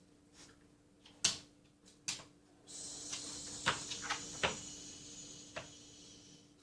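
A few sharp household knocks, then a steady hiss starting just under 3 seconds in, with more knocks and clatters over it, fading toward the end.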